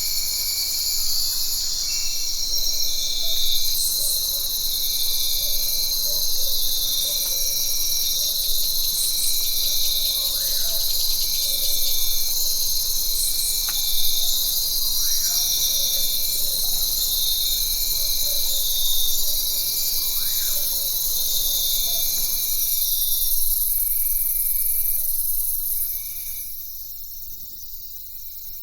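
Jungle ambience dominated by a dense, steady chorus of insects shrilling high, with a short call repeating about every second and a half and a few brief rising-and-falling calls over it. Near the end the insect chorus fades and the whole sound drops in level.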